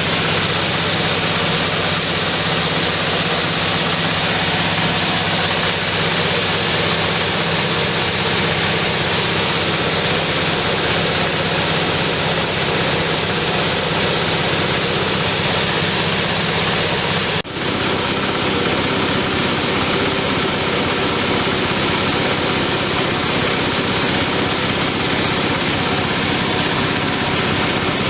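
Dry coffee huller running steadily, its motor humming under the even rushing noise of the hulling mechanism. The sound drops out for an instant about two-thirds of the way through, then carries on unchanged.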